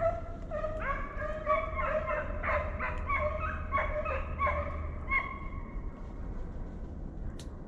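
Deer-drive hounds baying in the woods, a rapid string of overlapping calls that thins out after about five seconds.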